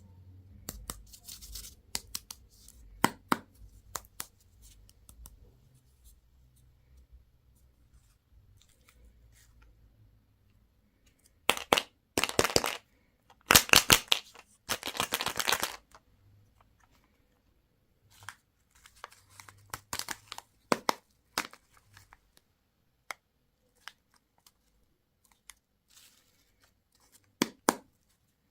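Candy and toy packaging being torn and crinkled open by hand, with scattered small clicks and taps and two louder spells of tearing in the middle.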